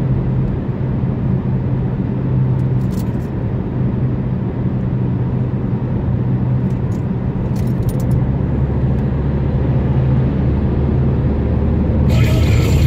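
Car driving: a steady low engine and road hum, with a few faint clicks about three seconds in and again around seven to eight seconds. The hum shifts lower near the end.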